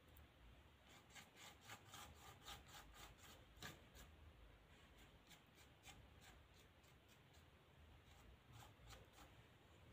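Faint rubbing of a bristle paintbrush working oil paint over a plywood board in short back-and-forth strokes, quick and regular for the first few seconds, then sparser.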